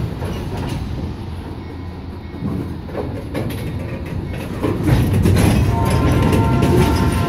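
Empty railroad flatcars rolling past close by: a steady rumble of steel wheels on the rails with repeated clicks, growing louder about two-thirds of the way through.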